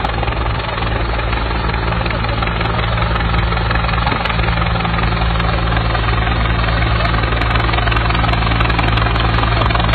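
A steady, loud low engine drone, holding an even pitch throughout.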